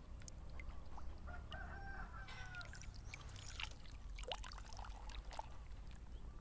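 Wind rumbling on the microphone, with a single pitched call of about a second about a second and a half in, then scattered sharp clicks and rustles.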